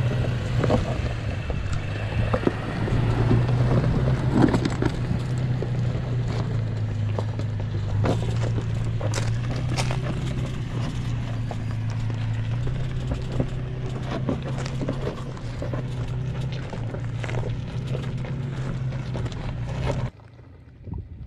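Toyota Tacoma pickup crawling slowly over a rocky trail: a steady low engine drone, with rocks and gravel cracking and popping under the tyres. The sound drops away suddenly near the end.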